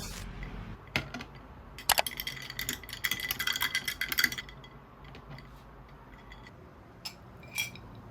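Small hard objects being handled: a few sharp clicks, then about two and a half seconds of light clinking and rattling with a faint ring, and scattered small knocks near the end.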